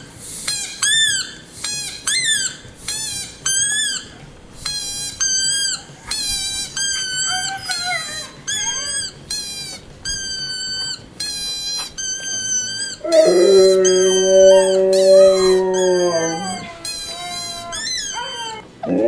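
Recorded husky howls played back through a device speaker: a run of short, high-pitched calls, each rising and falling. About thirteen seconds in, a Siberian husky howls along in a much louder, lower voice for about three seconds, and starts another howl at the very end.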